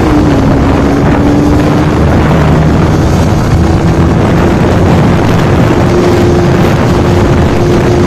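Bajaj Pulsar NS200's single-cylinder engine revving hard under full acceleration in third gear, with heavy wind rush on the microphone. The engine note dips just at the start, right after the upshift, then climbs steadily as the revs build toward 9,500 rpm.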